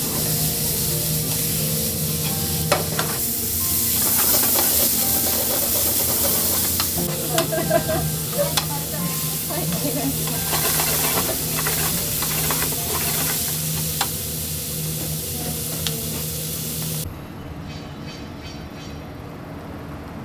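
Sliced onion and meat sizzling loudly as they are stir-fried in a frying pan, with a steady low hum and the utensils clicking against the pan now and then. About three seconds before the end the sizzling cuts off suddenly, leaving quieter street noise.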